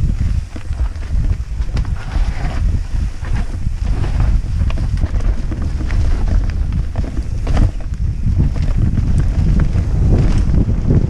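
Wind buffeting a helmet-mounted microphone during a fast mountain-bike descent, a heavy low rumble throughout, with the bike's tyres rolling over leaf-covered dirt, roots and rocks and frequent short knocks and rattles from the bike.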